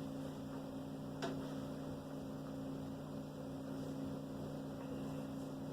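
Steady electrical mains hum, with a single sharp click about a second in, the click made when accepting the Windows licence terms during setup.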